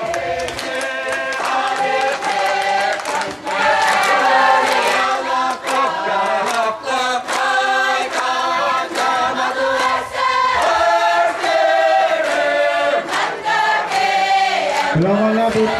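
Crowd of women singing together in chorus, with a regular sharp beat keeping time.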